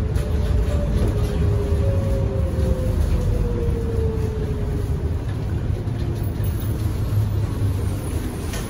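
Inside a Bombardier Innovia APM 100 (C801) light-rail car running on rubber tyres: a steady low rumble with a motor whine that falls in pitch as the train slows, easing off slightly toward the end as it draws into the station.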